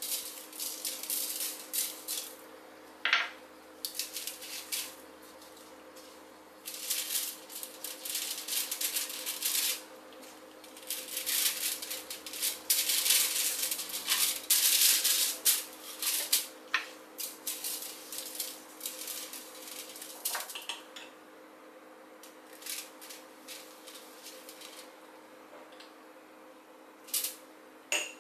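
Aluminium foil crinkling and rustling under gloved hands as whole fish are rubbed and turned on a foil-lined baking tray, in irregular bursts that are busiest around the middle and thin out near the end, over a faint steady hum.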